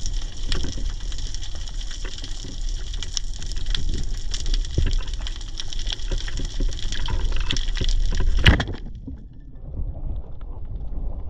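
Sea water splashing and sloshing around a camera at the surface while swimming, with many small crackles. A loud splash comes about eight and a half seconds in, after which the sound turns muffled for a moment before the splashing returns.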